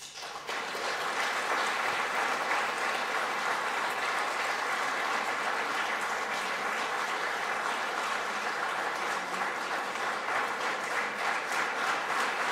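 Large audience applauding steadily. The applause swells in within the first second.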